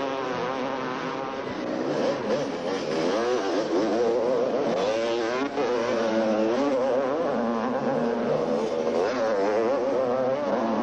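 250cc two-stroke motocross motorcycle engines racing, their pitch rising and falling as the riders open and close the throttle through corners and jumps.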